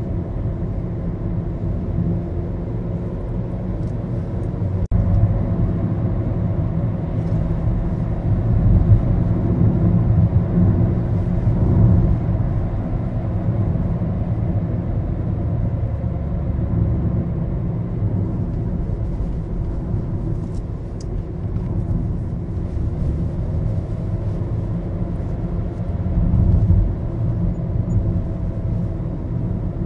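Maruti Suzuki Baleno heard from inside the cabin while driving: a steady low rumble of engine and road noise that swells a few times.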